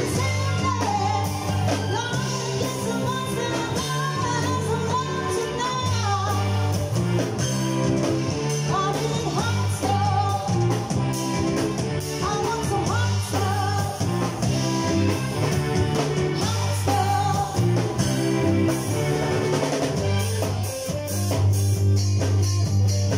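Live band playing a song: women singing into microphones over electric guitar, bass guitar, keyboard and drum kit, amplified through the PA.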